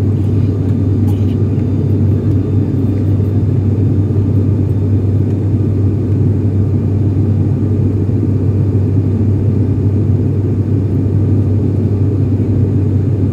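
Steady low drone of a high-wing turboprop airliner's engines and propellers, heard inside the cabin during the climb after take-off.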